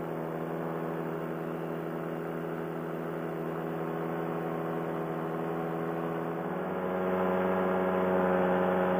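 Paramotor engine droning steadily in flight, heard close from the pilot's harness. About seven seconds in it gets a little louder and slightly higher in pitch.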